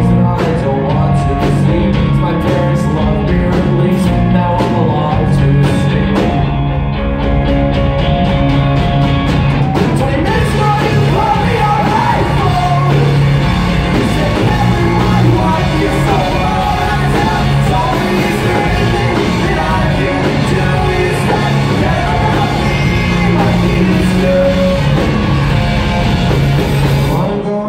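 Live rock band playing: electric guitars, bass and drums, with vocals singing and shouting over them, heard from the audience in a concert hall.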